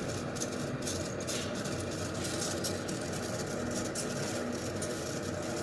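Goar V60 electric fan running steadily: an even motor hum under a rush of air, with a few faint clicks.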